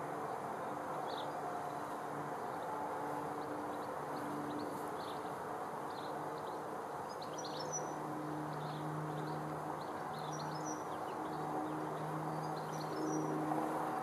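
Outdoor ambience with small birds chirping: scattered high chirps, and from about halfway a short call repeating every two to three seconds. Underneath runs a steady low hum that swells and fades.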